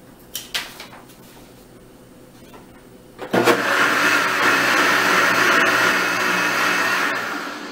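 Countertop blender starting suddenly about three seconds in and running steadily as it blends carrot rings with soy milk into a creamy smoothie, then winding down near the end. A few light clicks come before it starts.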